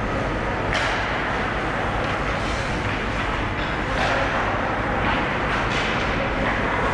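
Ice hockey rink ambience during play: a steady din of rumble and hiss, with a few short scraping hisses of skate blades on the ice.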